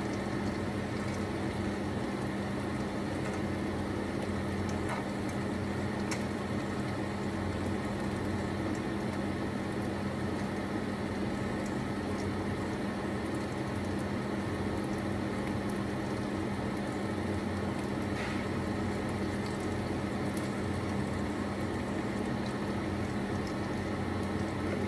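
Oil sizzling and crackling in a frying pan of leftover meat, chips and melting cheese, with a few light clicks of metal tongs against the pan. A steady low hum runs underneath.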